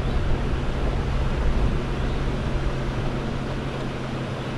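An engine running steadily: a constant low hum over a rumbling noise.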